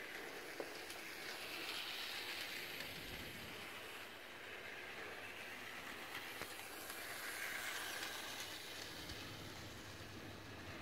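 Under-tree model train set running around its circular track, a steady whirring rattle that grows louder twice as the train passes close by.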